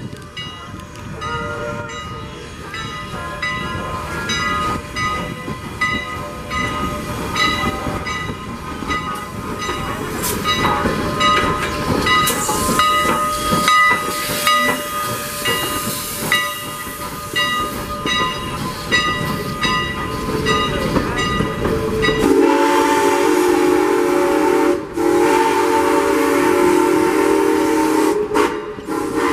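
Strasburg Rail Road No. 89, a 2-6-0 steam locomotive, chuffing as it pulls away with a train and passes close by, its exhaust beats growing louder. About 22 seconds in its steam whistle blows a long blast, broken twice briefly.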